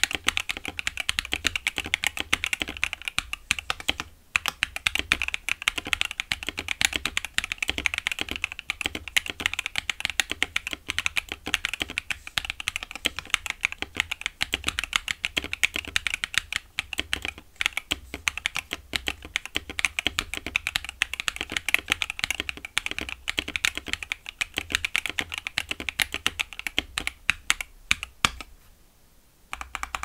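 Continuous fast typing on a KBD67 Lite R3 mechanical keyboard with a polycarbonate plate, Outemu Cream Green switches and Domikey Fading Cherry-profile PBT keycaps: a dense run of keystroke clicks, with a brief break about four seconds in and a pause of about a second near the end.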